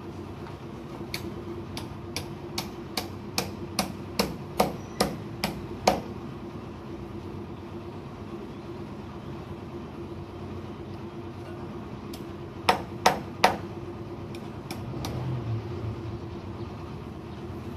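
A run of about a dozen sharp hammer blows, roughly two a second, then a pause and three more blows, over a steady low hum.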